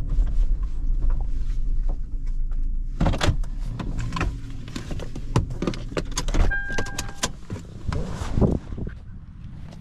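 Inside a 2007 Toyota 4Runner, a low steady rumble carries on underneath. About three seconds in, a run of sharp clicks, knocks and rattles starts, from handling in the cabin. A single short electronic beep comes a little past halfway.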